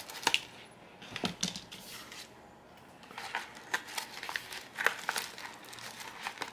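Scissors snipping through the edge of a plastic bubble mailer, followed by the crinkle of the mailer's plastic as the cut end is pulled open. The sounds come as short, sharp snips and crackles with a quieter stretch about two seconds in.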